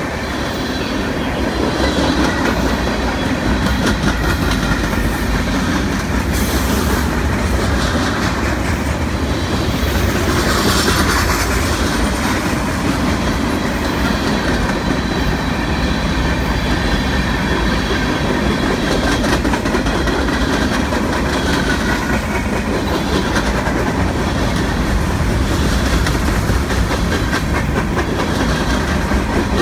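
Freight cars of a long train (tank cars, boxcars and covered hoppers) rolling past close by: a steady rumble of steel wheels on rail with clickety-clack over the rail joints, and a faint squeal of wheels at times.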